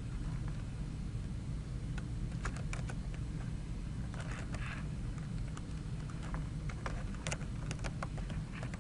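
Computer keyboard being typed on: short irregular runs of key clicks starting about two seconds in, over a steady low hum.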